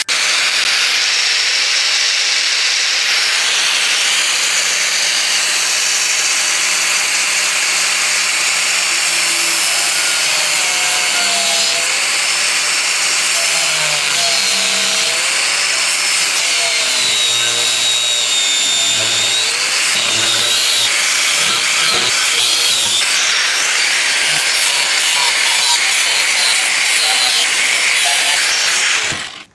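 Disc cutter cutting through the car's sheet-steel body panel along a marked line, running continuously with its pitch wavering as it bites under load.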